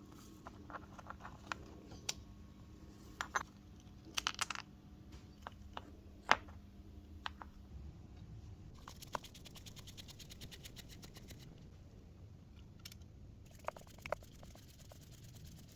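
Tools and small metal parts of a vintage can opener being handled: scattered clicks, taps and scrapes, with one sharp click about six seconds in that is the loudest. From about nine to thirteen seconds there is a run of rapid, fine, even ticking.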